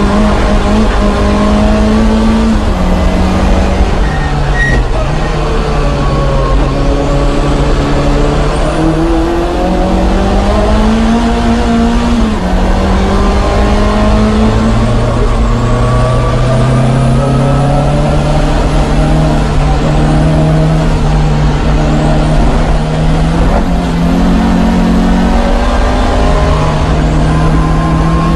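Lancia Delta HF Integrale's turbocharged four-cylinder engine heard from inside the car at racing speed, its pitch climbing and then dropping again and again as it is driven hard through the gears.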